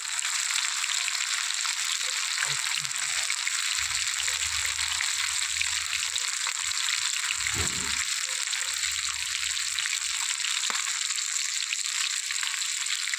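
Fish frying in oil on a tawa (flat iron griddle), a steady sizzle with fine crackling throughout.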